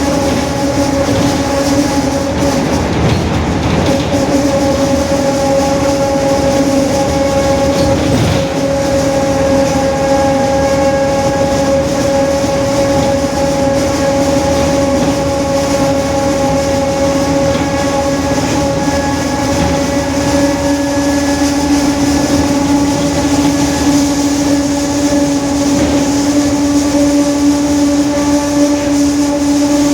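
Mercedes-Benz OF-1721 city bus under way, its differential droning with a steady whine over engine and road rumble. The whine grows a little louder near the end. The drone is the noisy, 'roncando' differential.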